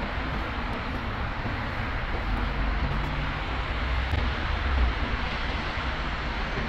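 Steady outdoor city background noise: a continuous low, unsteady rumble under an even hiss, with no distinct events.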